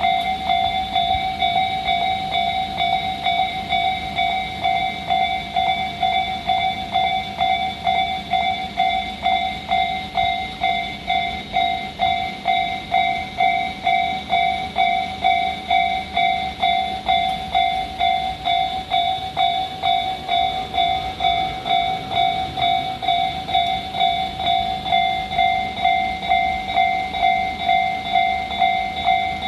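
Level crossing warning bells ringing a steady repeating alarm, about one and a half strokes a second, with the rumble of a 1500/1200 type diesel railcar running over the crossing beneath it.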